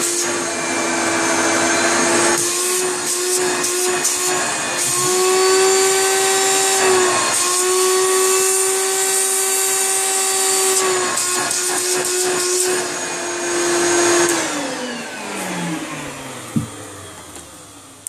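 Hoover Turbomaster Electronic U5080 upright vacuum cleaner running with its hose fitted, its motor note stepping up and down several times as the suction at the hose end is tried against a hand. About fourteen seconds in it is switched off and the motor winds down in a long falling whine, with a single knock near the end.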